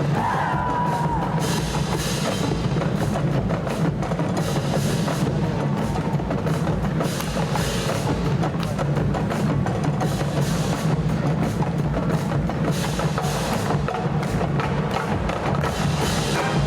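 Marching band's percussion section playing a drum passage: bass drums and sharp clicking strikes in a steady driving rhythm.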